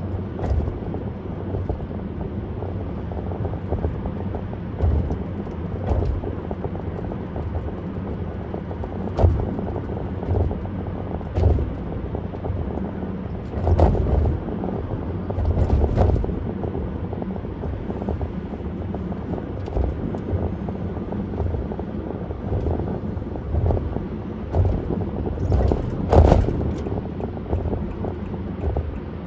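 Car driving on a parkway at speed: a steady low rumble of road and wind noise, with brief louder swells every few seconds, the strongest about halfway through and again near the end.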